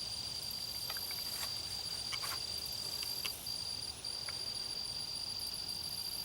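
Insects trilling steadily in a high, thin, unbroken tone. A few faint clicks come from hand tools being worked on the outboard's throttle linkage.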